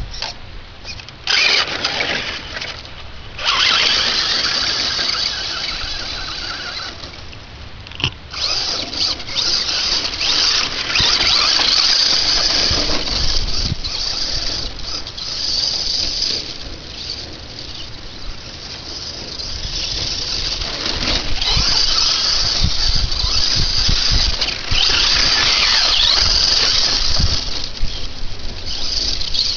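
Traxxas Slash VXL electric RC short-course truck driving hard: its brushless motor and drivetrain give a high-pitched whine that swells and fades in repeated bursts as the throttle is worked, with brief lulls about 3 and 8 seconds in.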